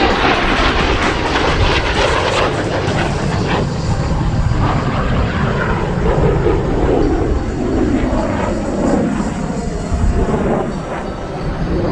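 MiG-17 jet fighter's Klimov VK-1 turbojet, loud and steady as the jet flies by.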